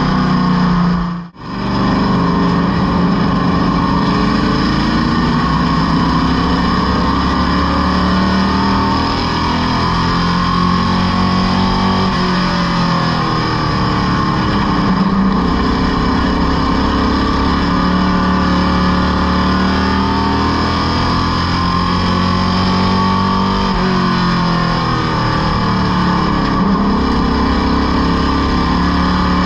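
Stock car race car engine heard from inside the cockpit, running at part throttle under caution, its pitch rising and falling gently with the pace. The sound cuts out briefly about a second in.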